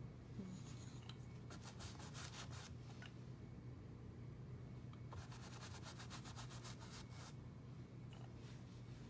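Quick back-and-forth scrubbing strokes of a painting tool on a canvas, in two runs: one of about a second, then one of about two seconds. A faint low hum lies under them.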